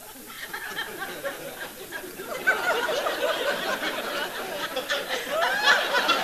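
Studio audience laughing: a few chuckles at first, then widespread laughter from about two and a half seconds in, growing louder toward the end.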